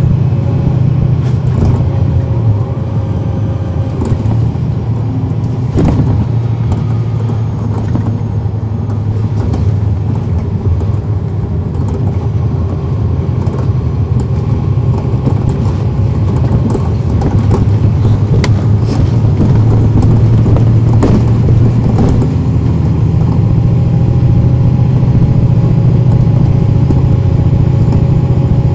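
Cummins ISL9 diesel engine of a 2010 NABI 416.15 transit bus, heard from on board as the bus drives, a steady low drone with occasional clicks and rattles. It eases off around ten seconds in and is louder again from about eighteen seconds on.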